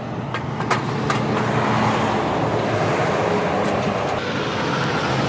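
Freightliner Cascadia semi-truck with a loaded flatbed trailer passing close by: diesel engine hum and tyre rumble, building over the first couple of seconds as it draws near and then holding steady.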